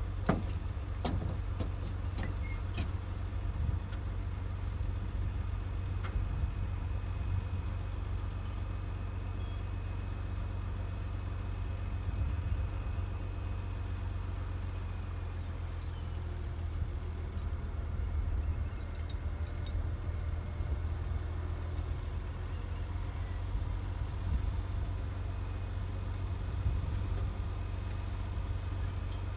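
A steady low engine rumble, with a few sharp clicks and knocks in the first three seconds.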